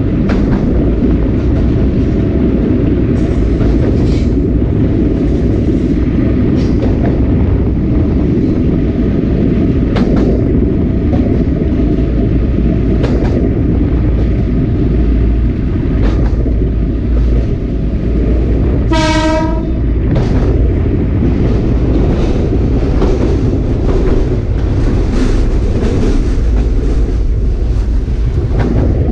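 Sagano Romantic Train's SK200 coach running on the line, heard from the leading coach: steady wheel-on-rail noise with scattered clacks. About two-thirds of the way through the train's horn sounds once for about a second, and it starts to sound again right at the end.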